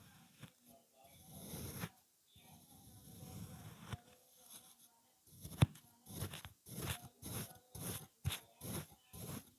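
Kinetic sand being cut, giving crunchy sounds: slower, drawn-out crunches that swell for about a second each in the first half. From about halfway through come quicker short crunching cuts, about two a second, with a sharp click at the start of that run.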